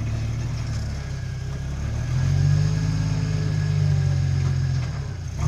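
Off-road vehicle's engine pulling at low revs, picking up revs and getting louder about two seconds in, holding there, then easing off near the end.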